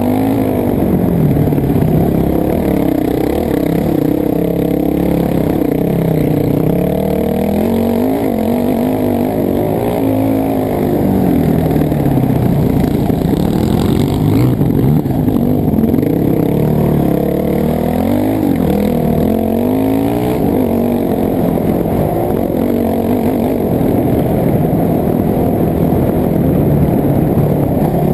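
Dirt bike engine being ridden hard, revving up and down, its pitch climbing and falling again every couple of seconds.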